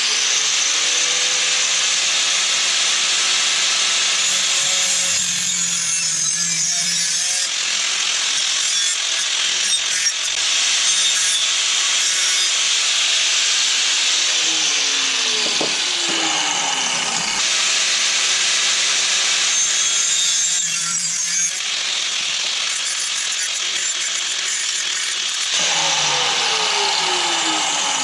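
Power tool cutting into rusty steel chassis metal, running continuously with a harsh, hissing grind, its pitch sagging under load a few times.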